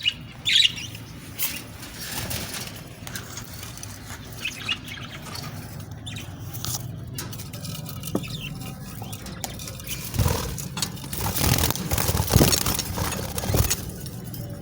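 Budgerigars moving about in their cage or nest box: a short high chirp near the start, scattered scratching and clicking, and a louder stretch of rustling and wing-fluttering about ten seconds in.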